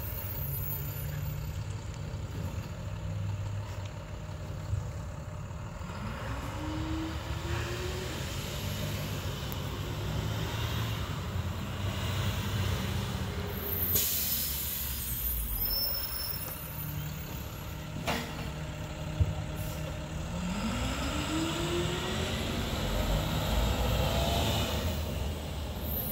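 Diesel engine of an International garbage truck with a Leach rear-loader body running, speeding up twice with a rising pitch as it pulls along the street. An air brake hisses briefly about halfway through, and a sharp knock follows a few seconds later.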